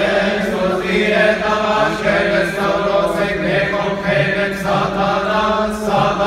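Men's voices chanting a Coptic Orthodox hymn together, a slow drawn-out line of long held notes sung over a steady low note.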